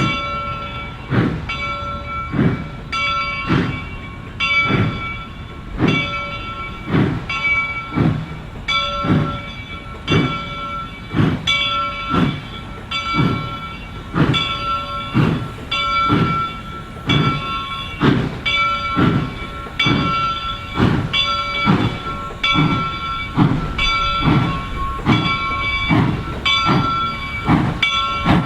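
Reading & Northern 425, a 4-6-2 Pacific steam locomotive, working a train, its exhaust beating in a slow, even rhythm of a little more than one chuff a second.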